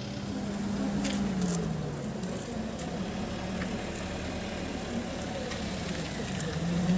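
A motor vehicle's engine running at low speed with a steady hum. Its pitch drops about two seconds in and rises again near the end.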